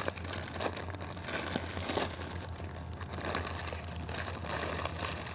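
A snack bag crinkling and rustling as it is handled, in irregular bursts, over a low steady hum.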